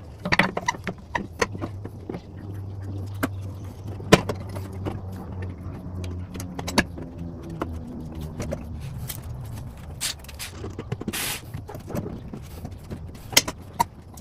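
Red Injen aftermarket intake tube being worked down into the engine bay and pushed onto its coupler: a run of irregular knocks, clicks and scrapes as it bumps and rubs against engine-bay parts, with a short rustling burst about 11 seconds in, over a steady low hum.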